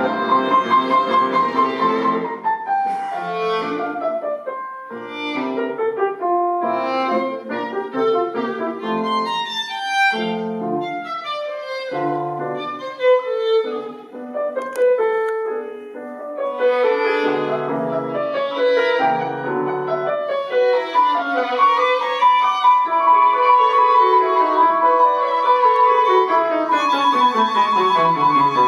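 Background music: violin melody over piano.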